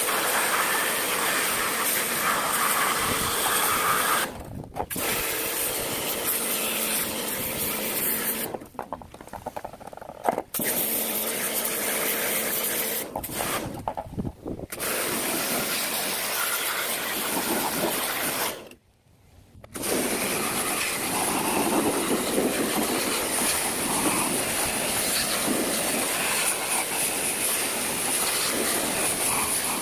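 A loud, steady hissing noise that stops briefly four times and starts again; the longest break comes about two-thirds of the way through.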